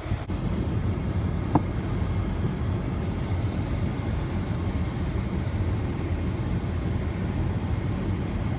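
Steady road and engine rumble inside the cabin of a moving Honda Civic, with one brief click about a second and a half in.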